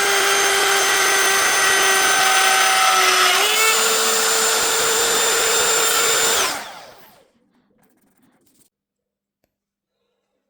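Electric power tool's motor running with a steady high whine, stepping up in speed a little over three seconds in, then switched off and dying away about six and a half seconds in.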